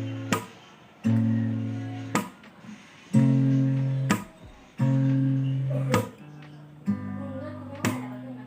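Acoustic guitar playing a slow chord intro: a new chord is strummed and left ringing roughly every two seconds, with a sharp percussive hit about a second after each one.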